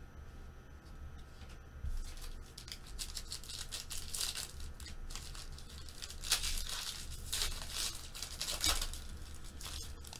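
Foil wrapper of a trading-card pack being torn open and crinkled by hand, starting about two seconds in as a run of crackling rips, with the loudest tears near the middle and toward the end.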